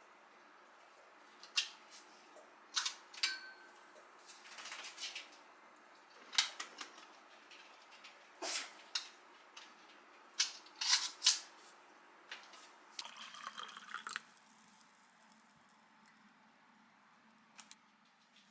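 Scattered sharp clicks and metallic snaps from a steel tape measure being pulled out and let back in against a window frame, with a short rattle lasting about a second late on.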